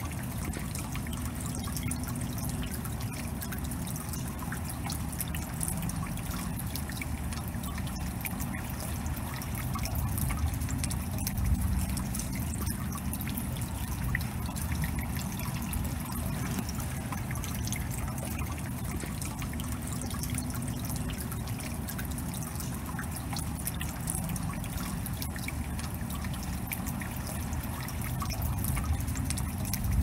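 Water dripping and trickling during rain: many drops ticking at an irregular pace over a steady run of trickling water, a little louder about eleven seconds in.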